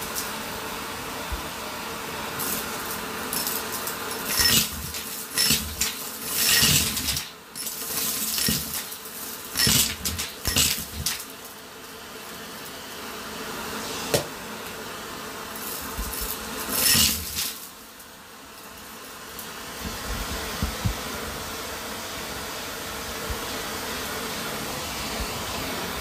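Vacuum cleaner hose sucking up a pile of coins, plastic beads, glitter stars and grit off a carpet. The motor runs steadily while the debris crunches and clatters up the hose in bursts, heaviest through the first half and again briefly about 17 seconds in, after which only the even suction hum is left.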